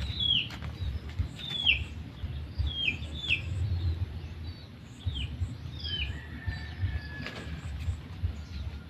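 A bird calling with short chirps that slide down in pitch, repeated several times, over a steady low rumble.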